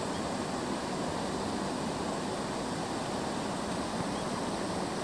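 Steady rush of a swollen, muddy river in flood, pouring over and around a low bridge that sits at the level of the riverbed.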